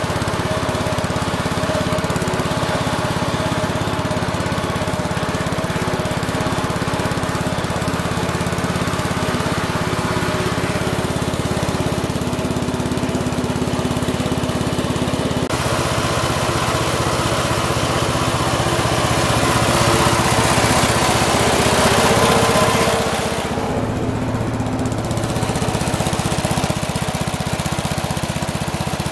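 Bolens 1050 garden tractor's engine running steadily. Its note changes about halfway through, grows louder for a few seconds near the end, and then drops back.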